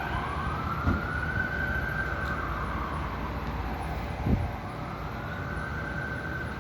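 Emergency vehicle siren wailing: its pitch rises slowly, holds high, falls about four seconds in and climbs again near the end, over a steady low rumble of street traffic.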